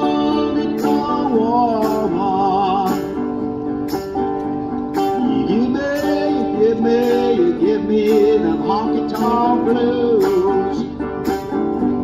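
Hollow-body archtop guitar strummed in a steady country rhythm, about two strokes a second, with a melody line on top that slides and wavers in pitch.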